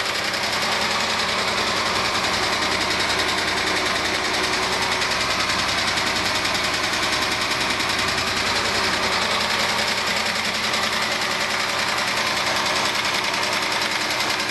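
Renault Clio petrol engine running steadily with a fast, even ticking clatter from inside it. One mechanic puts the noise down to piston skirt slap; others blamed a clogged oil breather, valve clearances, or too little oil reaching the top end.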